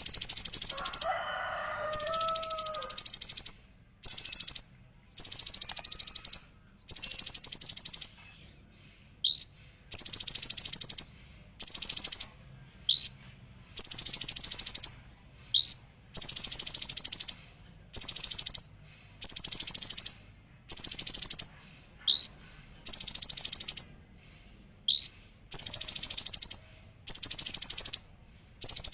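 Kolibri ninja (olive-backed sunbird) singing in repeated high, fast buzzing trills about a second long with short gaps between them, the golden-grasshopper (belalang emas) imitation used as fill-in song. Short rising chirps fall in several of the gaps, and a lower warbled phrase comes near the start.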